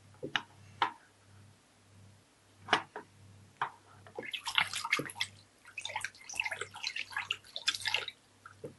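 A hand splashing and sloshing water in a plastic tub: a few separate plops and drips at first, then a busy stretch of splashing from about four seconds in until near the end.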